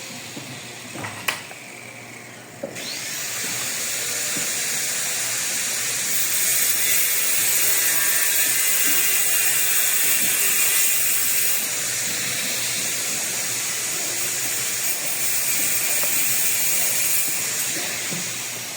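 A power saw cutting tile, starting about three seconds in and running steadily with a high, gritty hiss and a faint motor whine. A sharp click comes just before it.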